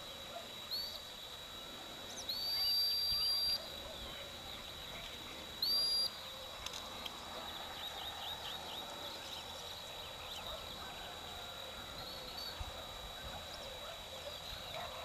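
Dog whistle blown in steady, single-pitched blasts: a short one about a second in, a long, loud one of over a second at about two seconds, another short one at about six seconds, and a faint short one near the end, as commands to a pointing dog working the field.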